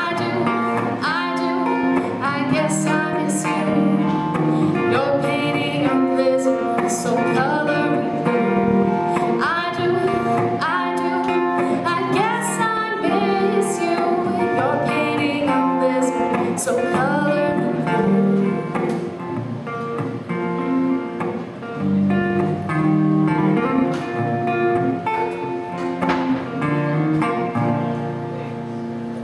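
Singing with acoustic guitar accompaniment, a song being performed live. The level eases off near the end as the song closes.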